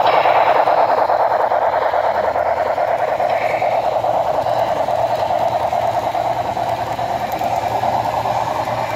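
HO scale model steam passenger train running past on the layout. The Broadway Limited Southern 610 locomotive's onboard sound and the wheels on the rails make a steady rushing, fast-textured running sound that eases off slightly as the locomotive moves away and the passenger cars follow.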